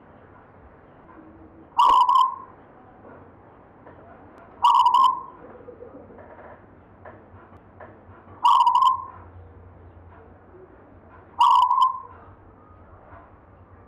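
Zebra dove (perkutut) cooing: four short calls, evenly spaced about three seconds apart.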